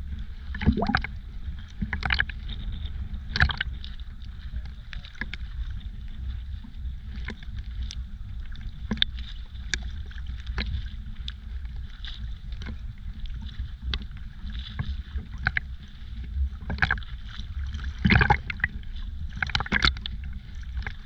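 Small sea waves lapping and splashing against a camera held at the water surface, with a steady low rumble and frequent short, irregular splashes, a cluster of them near the end.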